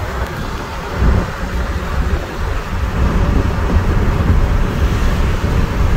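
Steady low road rumble and hiss inside a 2003 Honda Element's cabin, driving at highway speed on a rain-soaked road.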